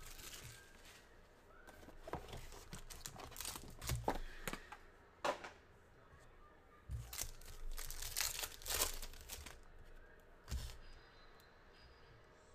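Trading-card box being opened and foil card-pack wrappers crinkling and tearing, in irregular bursts of rustling and scraping with a few sharp clicks.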